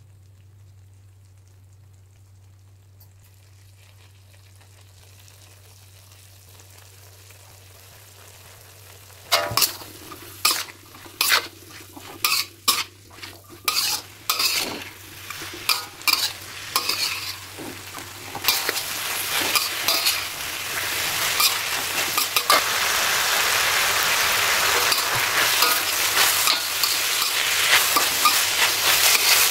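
Tempe and long-bean stir-fry being stirred in a pan. After a faint, quiet start, a spatula clacks and scrapes against the pan about once a second from roughly nine seconds in. Under it the frying sizzle builds and grows steadily louder toward the end.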